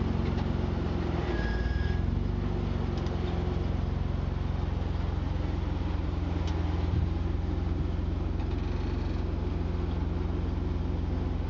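Jeep Wrangler's engine running steadily at low revs under load as the Jeep crawls up a steep sandstone ledge.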